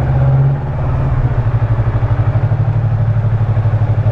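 Yamaha MT-25's 250 cc parallel-twin engine running steadily at low revs, with a brief swell at the start and a small drop about half a second in.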